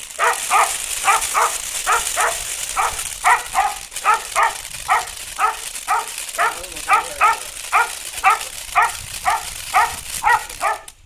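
A dog barking repeatedly and steadily, about two to three barks a second, over a steady high hiss that starts and cuts off abruptly.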